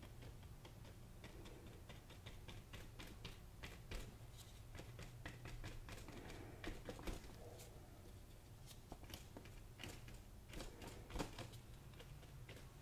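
Paintbrush dabbing acrylic paint onto a canvas: faint, irregular light taps, several a second.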